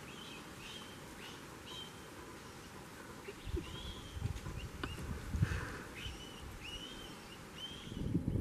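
A bird calling over and over, short chirps that rise and fall in pitch, roughly once a second, against faint low rumbling outdoor noise.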